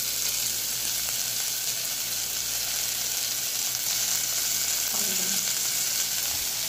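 Sliced onion rings frying in hot olive oil in a saucepan: a steady sizzle, with the onions still pale at the start of caramelizing.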